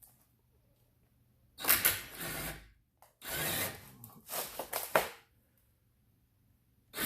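Cordless impact driver running in reverse in two short bursts, a shorter one about a second and a half in and a longer one after it, driving a screw-extractor bit into a stripped screw head; the screw does not come out.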